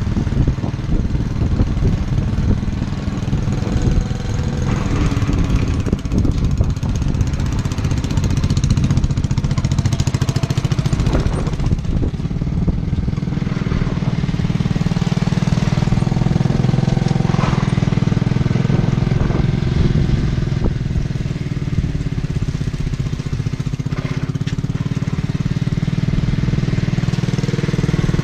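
Worn-out 8 horsepower engine of an old Squire garden tractor running steadily while working, with scattered clicks and knocks over the engine note.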